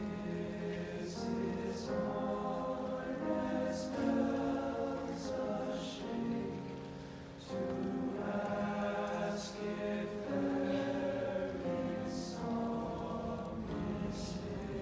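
Male choir singing in several voice parts with piano accompaniment, in long sustained phrases, with a short break about seven seconds in.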